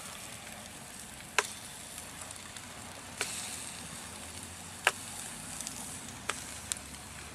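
Whitefish and frog legs frying in vegetable oil in a thin skillet over campfire embers: a steady sizzle, with about five sharp pops scattered through it.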